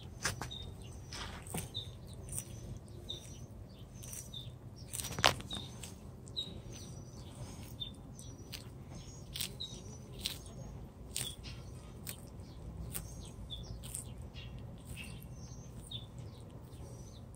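A tortoise biting and crunching leafy greens: irregular crisp crunches, roughly one a second, with one sharper crunch about five seconds in. Small birds chirp over and over in the background.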